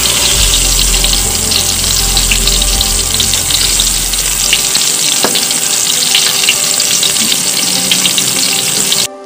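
Battered eggplant deep-frying in hot oil in a wok: a steady sizzle full of small crackling pops, cutting off suddenly near the end.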